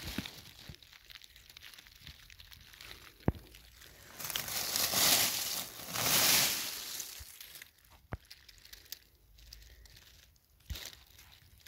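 Dry fallen beech leaves crackling and rustling as a hand brushes them aside, loudest in two stretches a few seconds in. A few sharp clicks stand out among the quieter rustling.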